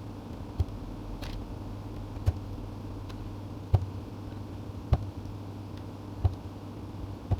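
Mechanical keyboard switches being pressed one after another into the hot-swap sockets of an MQ187 keyboard kit, a sharp click as each one snaps in, six times, over a low steady hum.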